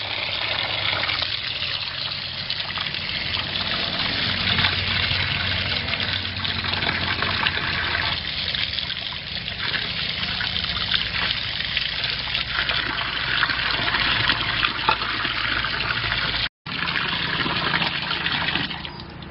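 A stream of running water pouring and splashing into a plastic bowl as hands rub and rinse raw quail. The sound cuts out for an instant near the end.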